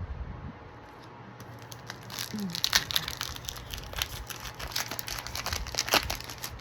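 Foil Pokémon card booster pack wrapper being torn open and crinkled by hand: a run of sharp crinkling and crackling that starts about a second and a half in and stops just before the end.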